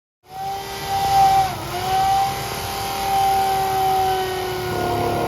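A motor running with a steady whine that dips in pitch about a second and a half in and steps down again near the end.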